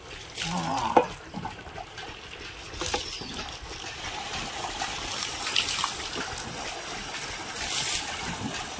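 Water running from a tap into a plastic bucket, a steady stream that grows louder about three seconds in, with a sharp splash about a second in.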